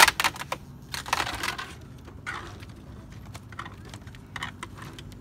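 White plastic mobile home skirting trim being pulled and peeled out from under the house's edge. There is a sharp snap at the start, a scraping rasp about a second in, then scattered light clicks and ticks.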